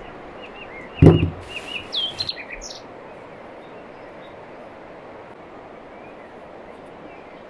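Small birds chirping in quick short calls during the first few seconds, with one loud thump about a second in and a brief rustle just after; then only a steady faint hiss.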